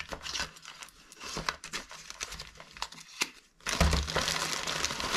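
Plastic courier mailer and the plastic bags inside it crinkling and rustling as hands rummage through them. At first there are scattered crackles; a little over three and a half seconds in, the rustling suddenly becomes louder and continuous.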